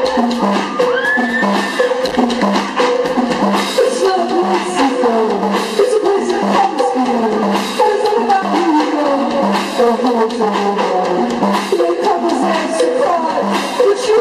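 Live band music played loud through a PA: a steady, evenly pulsing drum beat under electric guitars and a moving melody line.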